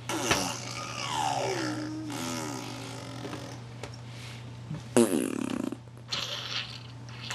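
A baby's voice sliding down in pitch and wavering, then, about five seconds in, a short, loud, buzzing raspberry blown through the lips.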